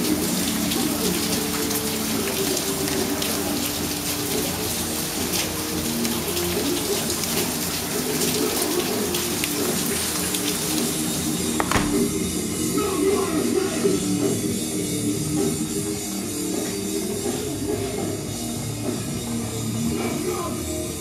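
Rock music playing over the hiss of heavy rain; about twelve seconds in, after a sharp click, the rain noise drops away and the music carries on alone.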